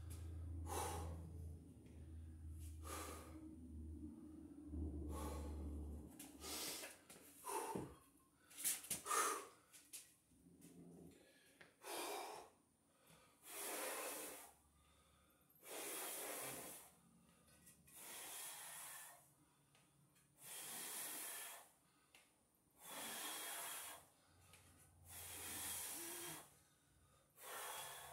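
A man breathing hard during exercise, with deep, even breaths about every two and a half seconds in the second half. A few knocks about eight to nine seconds in.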